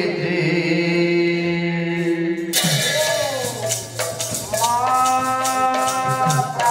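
Odia Pala music: a male singer holds a long sung note, then about two and a half seconds in brass hand cymbals and a barrel drum strike in with quick repeated clashes. About four and a half seconds in a woman's voice enters, singing held notes over the cymbals.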